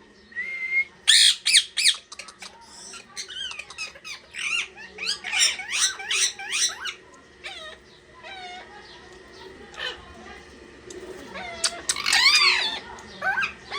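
Parrots squawking and calling in quick runs of short, bending calls, loudest about a second in, through the middle, and again near the end.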